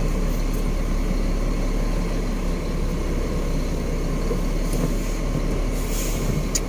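Truck engine running steadily at low speed, a continuous low drone.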